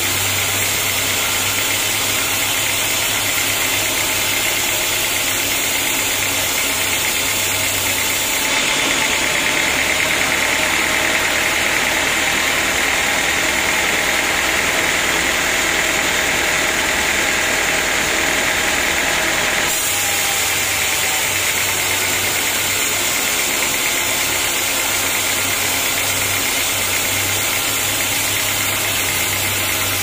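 Band sawmill running, a steady mechanical noise from the motor and blade. From about a third of the way in until about two-thirds it turns brighter and harsher, then drops back.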